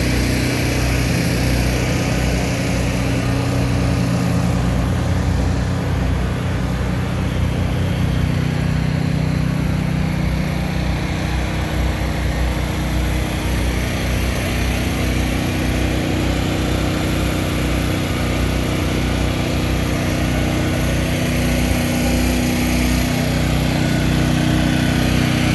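Kubota SVL97-2 compact track loader's four-cylinder turbo diesel engine running steadily at an even speed.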